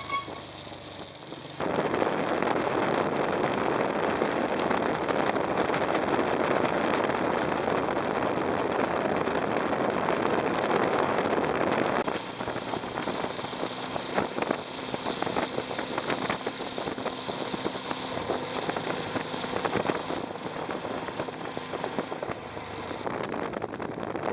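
Honda Transalp 650 motorcycle under way, heard through a camera clamped low by the rear wheel: a steady rush of wind and road noise over the V-twin engine, coming in about a second and a half in. About halfway through, the sound drops and changes abruptly.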